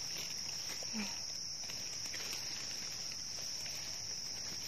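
Forest insects buzzing steadily on one unbroken high-pitched note, with a few faint clicks and rustles in the leaf litter.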